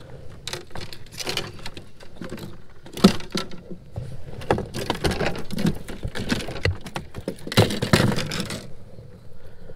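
Fishing rods, reels and gear being handled and shifted in a plastic kayak hull: irregular rattling and rustling with knocks of rods against the hull and rod holders, a sharp knock about three seconds in.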